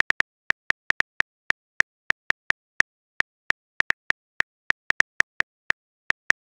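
Phone keyboard key-tap clicks from a texting app as a message is typed letter by letter: short, identical ticks at an uneven pace of about four a second.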